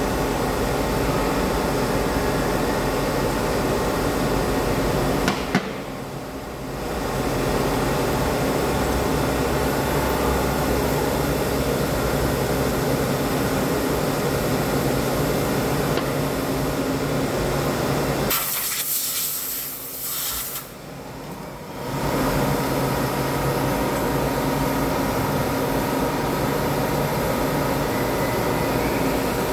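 CNC lathe running steadily while turning a cone. Its noise drops away briefly about six seconds in, and again from about eighteen to twenty-two seconds in. A short hiss opens the second drop.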